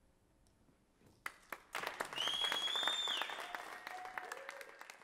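An audience applauding: a moment of silence, then a few scattered first claps about a second in, building into a short round of clapping with a whistle and a cheering call, which fades away near the end.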